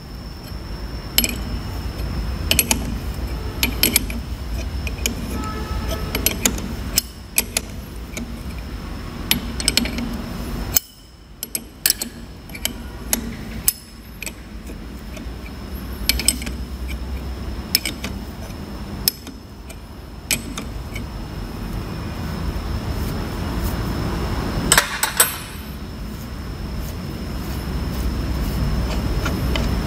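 Scattered light metallic clicks and taps from a threaded tappet spring compressor being unscrewed by hand to release it on a diesel inline injection pump, with a cluster of sharper clicks near the end. A steady low hum and a faint high tone run underneath.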